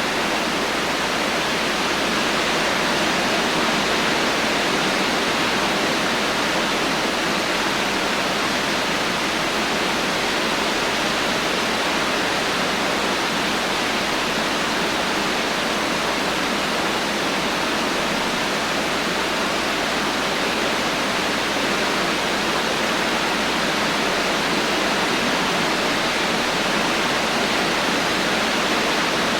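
Heavy rain falling with no thunder, a steady dense hiss with no single drops or changes standing out.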